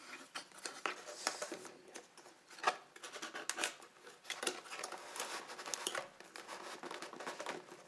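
Cardboard packing being handled and pulled about inside a camera box: an irregular run of light scrapes, taps and rustles, with one sharper knock a little under three seconds in.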